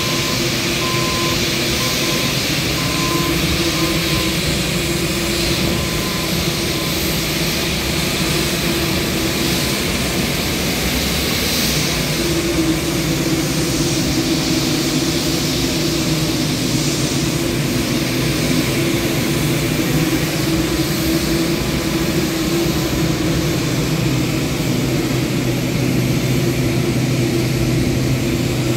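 Boeing 787-9's General Electric GEnx turbofans running at idle as the airliner taxis, a steady jet engine noise with a hum that grows stronger about twelve seconds in.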